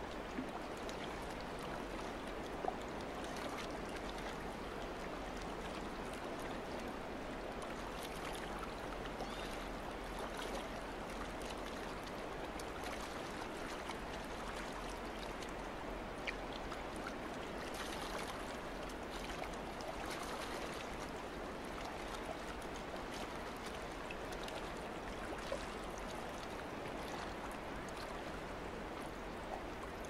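Calm sea water lapping gently in a shallow bay: a steady, even wash with a few brief ticks and small splashes.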